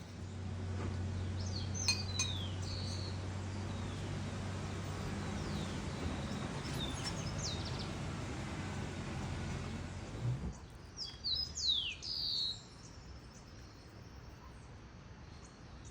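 Birds chirping with short, high, falling calls, loudest about twelve seconds in. Under the first ten seconds runs a steady low hum with hiss that cuts off suddenly.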